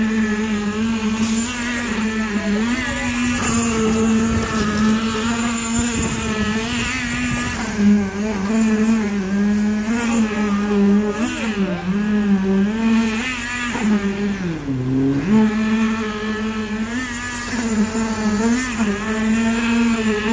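Concrete poker vibrator running with a steady high hum while it is pushed into wet concrete. Its pitch wobbles and sags twice under load, deeply about three quarters of the way through.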